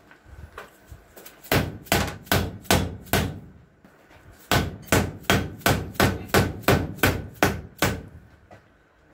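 Repeated hammer blows on the top end of a small hydraulic cylinder, driving the sealed gland into the barrel of a J-26 three-point hitch cylinder. A few light taps come first, then about five firm strikes, a short pause, and about ten more, roughly three a second.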